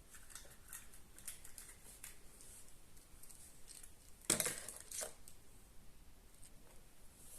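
Small plastic pieces being handled: light clicks and rustles, with a sharper clatter about four seconds in and a smaller one just after.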